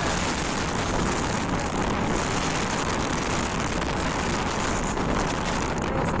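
Strong wind blowing across the microphone in a snowstorm on a high mountain ridge: a steady, dense rush with low buffeting rumble.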